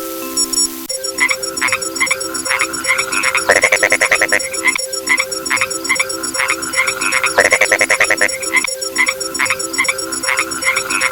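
Frog sound effect: frogs croaking in a chorus, with bursts of rapid trilled croaks, over a steady pattern of repeating electronic beeps. It starts about a second in, after a few chime-like notes.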